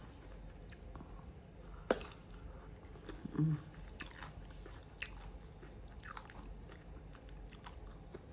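A person chewing a mouthful of food close to the microphone, with small crunches and clicks and one sharper click about two seconds in.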